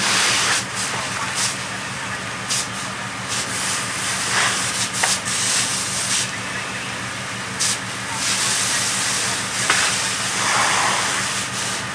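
A firefighter's hose nozzle spraying water onto a charred ceiling: a loud hiss that surges and eases in short bursts as the stream is worked, over a steady low hum.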